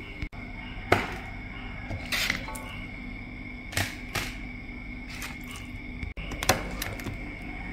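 A plastic serving spoon scraping and clinking against a metal wok as it scoops thick beef rendang. There are about five short scrapes spread over the seconds, over a steady low hum and a high whine in the background.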